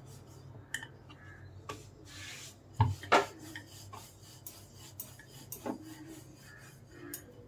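Wooden rolling pin rolling dough out on a wooden board: a soft rubbing, with scattered light clicks and knocks and two louder knocks about three seconds in.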